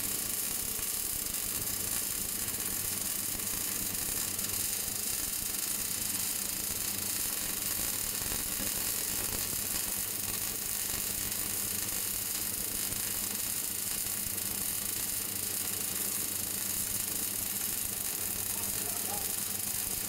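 Automatic MIG welding arc on a steel pipe, crackling and sizzling steadily as it throws spatter, over a steady low hum.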